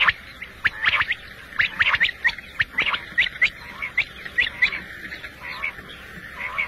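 Quail calling: a quick run of short, sharp high notes, about three a second, thinning out near the end.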